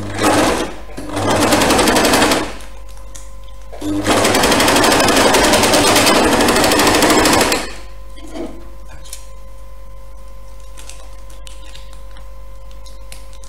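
Electric sewing machine stitching through knitted wool in three runs: a brief burst, then about a second and a half, then about three and a half seconds. It stops a little before eight seconds in.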